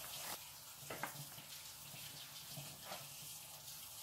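A metal spoon clinking against a glass bowl as sliced onion is scraped into it, then a couple more light knocks, over a steady watery hiss.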